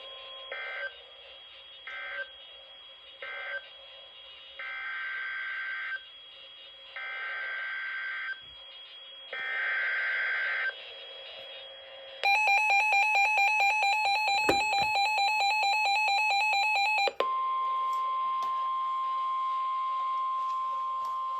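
Emergency Alert System data bursts and alert tones over weather radio: three short buzzy bursts of the end-of-message code, then three longer buzzy header bursts. Then a loud pulsing two-tone attention signal lasts about five seconds, followed by a steady single warning alarm tone for about four seconds.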